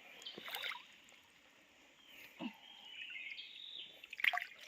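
Water dripping and trickling, with a few light knocks and splashes.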